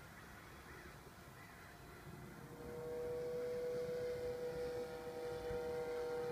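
Radio-controlled Mustang model airplane's motor and propeller giving a steady whine. It comes in and grows louder about two and a half seconds in as the plane nears.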